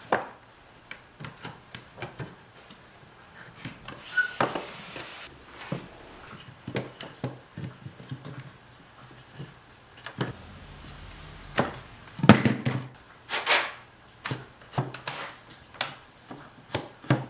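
Pine 2x4 leg blanks and round wooden end discs of a multi-axis turning jig knocking and clattering together as they are fitted and adjusted by hand: irregular wooden knocks with some rubbing between them, the loudest knocks about twelve and thirteen seconds in.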